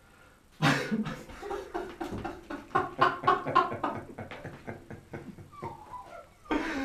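A man laughing hard in a long fit of quick, uneven bursts, breaking into a higher-pitched wavering laugh near the end.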